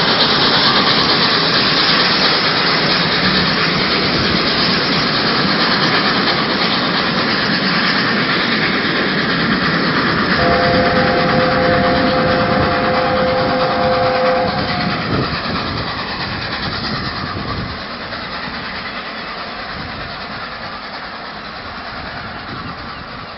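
Steam-hauled passenger train pulling away: steady noise of the coaches rolling past on the rails, with the LNER A4 locomotive's three-note chime whistle sounding for about four seconds about ten seconds in. The train noise fades as it draws away.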